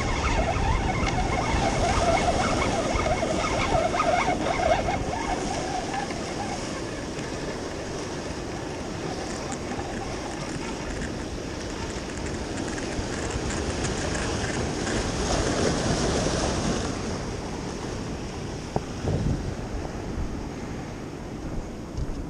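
Ocean surf washing and breaking over the rocks of a jetty, with wind buffeting the microphone.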